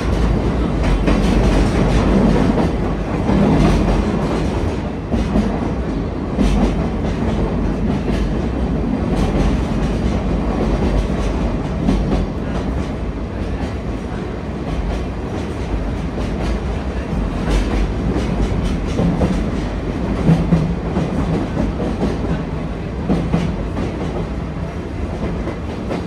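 Sagano Romantic Train rolling along the track, heard from its open-air car: a steady rumble of wheels on rail, with irregular clicks and knocks from the rails.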